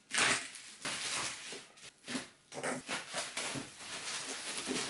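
Bubble wrap rustling and crinkling in short, irregular spells as it is pulled and peeled off a cardboard box.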